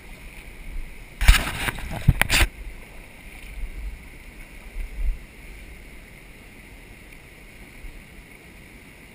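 Creek water running steadily, with two loud noisy bursts about one and two seconds in and some low rumbling during the first five seconds.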